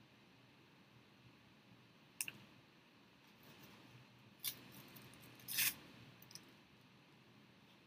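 Tissue paper being handled: a few short crinkles and clicks, about two, four and a half, five and a half and six seconds in, over faint room hiss. The loudest and longest crinkle comes as a piece is picked from a paper plate.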